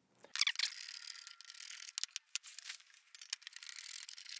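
Sped-up handling noise from a Newtonian reflector telescope tube being fitted into its tube rings: quick irregular clicks and knocks of metal clamps and fittings over rubbing and rustling. It sounds thin, with no low end.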